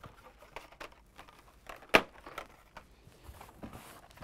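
Rustling and small clicks of Hot Wheels blister cards, card backs with plastic bubbles, being handled and slid out of a cardboard case, with one sharp click about two seconds in.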